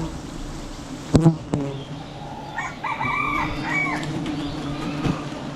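A swarm of honeybees buzzing steadily around a hive being cut, with two sharp knocks a little over a second in. In the middle a rooster crows once.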